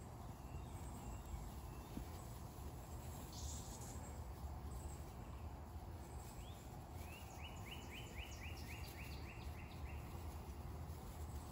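Faint outdoor ambience with a low wind rumble on the microphone and a brief rustle about three and a half seconds in, then a run of about ten short, evenly spaced chirps, roughly three a second, in the second half.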